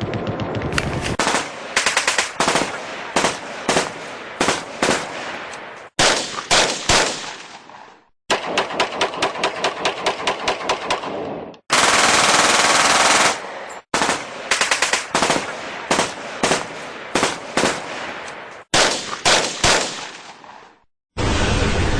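Machine-gun fire in rapid rattling bursts mixed with single gunshots, cutting off abruptly several times. About halfway through there is a couple of seconds of dense unbroken noise, and near the end a loud blast begins.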